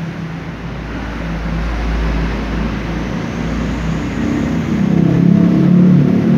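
Motor vehicle engine running under a steady haze of traffic noise, growing louder about four seconds in.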